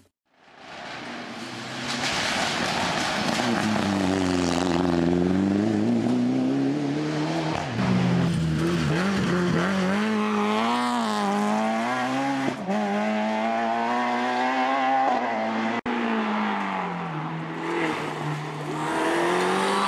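Rally car engines driven hard on a stage, revving up and dropping in pitch again and again with gear changes and lifts off the throttle. The sound breaks off sharply about three-quarters of the way through, then another car's engine carries on.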